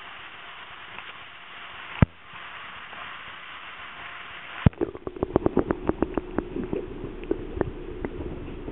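Steady hiss of a fish-tank room, then a sharp knock as the camera goes into the sturgeon tank. After that the sound is muffled and underwater, with a quick, irregular run of knocks and clicks against the camera as it moves among the sturgeon.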